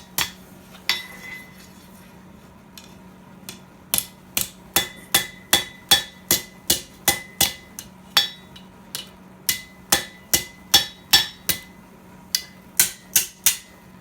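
Blacksmith's hammer peen striking hot steel against the step of an English-style anvil to texture and bend a leaf's edges. The blows come in quick runs of about three a second with short pauses between runs, each ringing with a clear metallic tone.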